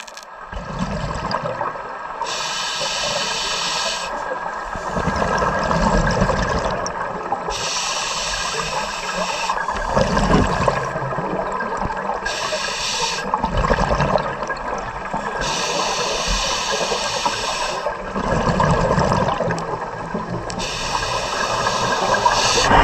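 Scuba diver breathing through a regulator underwater: a hiss on each inhale alternates with the rumble of exhaled bubbles, five breaths at about one every five seconds.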